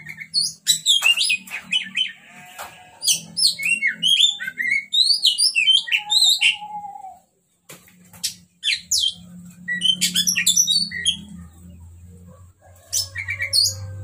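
Oriental magpie-robin singing a rapid, varied song of short whistled and chattering notes, in three bursts with short pauses between.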